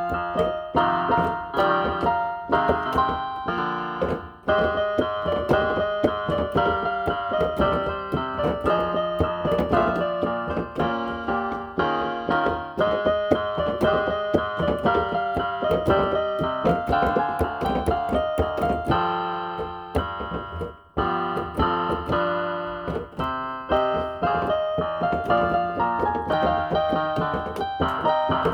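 Inexpensive home electronic keyboard played in a piano voice: a busy melody over chords, note after note struck at a steady pace, with two short breaks.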